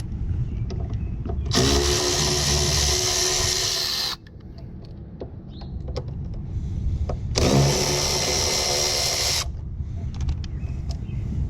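Power drill-driver with a 3/8 socket spinning up and running twice, about two and a half seconds and then two seconds, working at the bolts on an HVAC dehumidifier unit.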